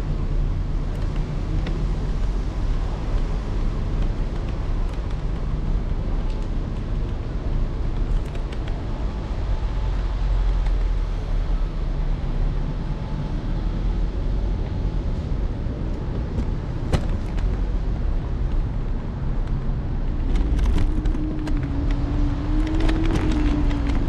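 Steady low rumble of an electric scooter riding over pavement, with wind buffeting the handlebar-mounted microphone. A few sharp clicks and rattles come through, and a low hum comes in near the end.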